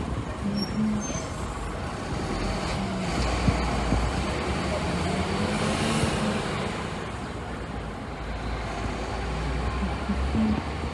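City street traffic: a continuous low rumble of passing vehicles that swells slightly in the middle as a heavier vehicle goes by.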